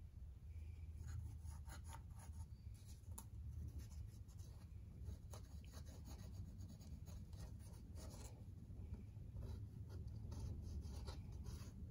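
Pencil scratching on cardboard in short, irregular strokes, sketching out a template. A low steady hum runs underneath.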